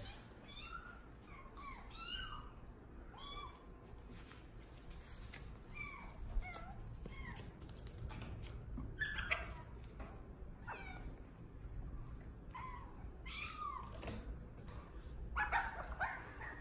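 Six-week-old Bengal kittens mewing: many short, high-pitched mews that rise and fall in pitch, scattered throughout, with a louder run of them near the end.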